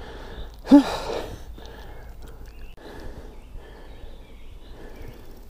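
Quiet outdoor ambience with faint rustling. Less than a second in, a single short, low pitched sound that rises and then falls.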